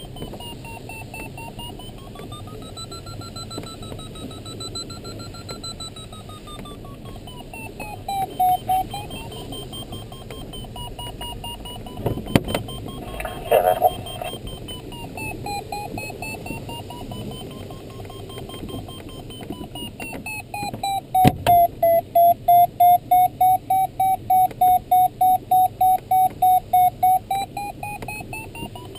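Glider audio variometer in the LS6 cockpit, a continuous electronic tone that wanders slowly up and down in pitch over the rush of airflow. About two-thirds of the way in it changes to steady pulsed beeping, about three beeps a second, until near the end. A few brief knocks come near the middle.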